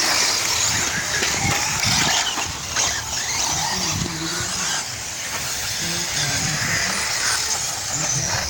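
4WD electric off-road RC racing cars running: high-pitched electric motor whine and tyre noise rising and falling as the cars accelerate and brake. Faint voices in the background.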